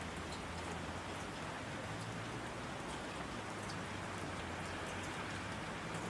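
Steady rainfall, with scattered individual drops ticking against a surface over an even hiss.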